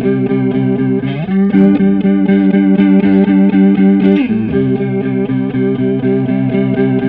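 Electric guitar playing a riff of repeated chords through a Stoy Sound Choir Boy analog bucket-brigade chorus pedal, switched on, with a Boss BD-2 Blues Driver in the chain. The chords are picked in a fast, even rhythm and slide to a new position about a second in and again about four seconds in.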